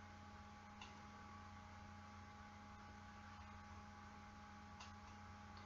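Near silence: a steady electrical mains hum with faint hiss, broken by two faint ticks, one about a second in and one near the end.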